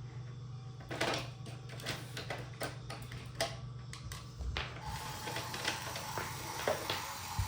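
Motorized toy train running on plastic track: a steady small-motor hum with many small clicks and rattles, and a higher steady whine joining in about five seconds in.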